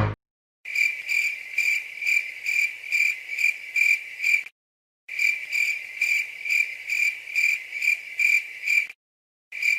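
Cricket chirping sound effect, the stock 'crickets' gag for an awkward silence: a high, even chirp repeating a little over twice a second in two runs of about four seconds with a short break between, starting again just before the end.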